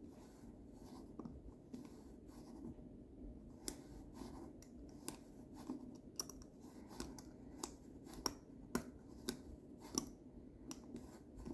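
Lever-lock picks working inside a lever lock: faint, irregular small metal clicks and scratches as the picks lift and shift the levers, coming more often after the first few seconds.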